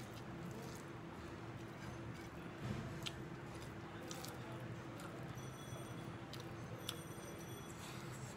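Soft squishing of cooked rice being mixed by hand on a plate, with a few faint ticks, one soft thump near the middle, and a steady low hum underneath.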